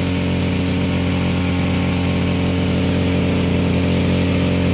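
Small engine-driven water pump running steadily at a constant speed, pumping water.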